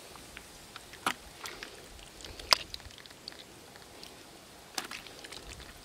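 Bare hands digging through wet mud and crumbling clods, giving a few sharp wet clicks and squelches, the loudest about two and a half seconds in, over quiet outdoor background.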